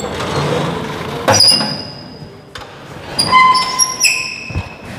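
A series of high, ringing tones, each starting suddenly and fading. One comes about a second in and several follow in quick succession near the end, over a background of rustling noise.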